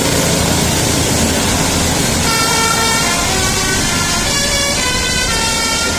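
A bus's 'telolet' musical air horn plays a tune of stepped notes, starting about two seconds in, over a steady noisy rumble.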